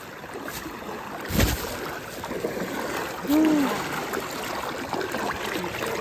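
Water splashing and churning as a person wades fast through a shallow river, with a sharp thump about a second and a half in and a short rising-then-falling call a little past the middle.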